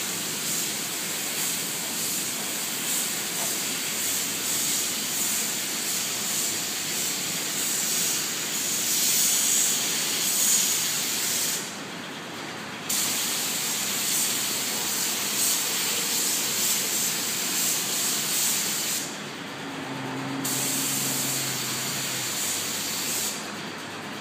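Gravity-feed compressed-air paint spray gun hissing steadily as it sprays paint. The hiss breaks off for about a second some twelve seconds in, and again for a moment around nineteen seconds, as the trigger is released. It stops near the end.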